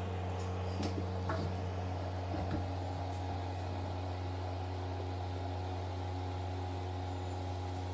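A steady low mechanical hum at an unchanging pitch, with a few faint clicks.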